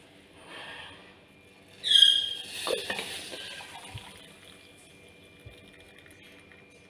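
Kitchen handling of a pan of freshly boiled tea at a gas stove: a short ringing metallic scrape about two seconds in, followed by a liquid-like rushing sound as the tea is dealt with.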